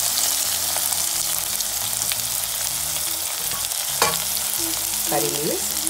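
Chopped onion frying in hot oil in a pan, with a steady sizzle. A single sharp click about four seconds in.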